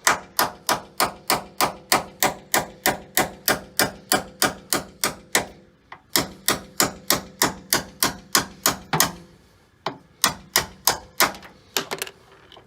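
Stubby hammer striking a steel punch in quick, even blows, about three a second, to drive an old metal door hinge liner out of a Jeep Wrangler JK door hinge; the liner on this side is coming out easily. The hammering stops briefly twice and ends with a few scattered strikes.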